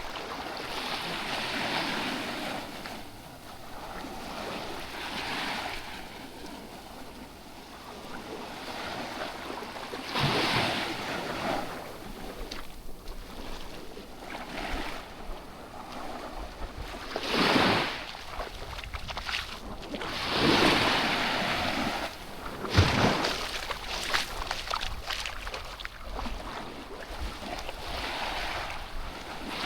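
Sea waves washing in and breaking on the beach, rising in several louder surges, with wind rumbling on the microphone.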